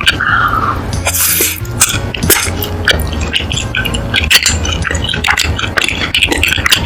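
Close-miked mukbang eating sounds: wet chewing and smacking of cheesy food, with many quick sharp clicks and a short slurp about a second in.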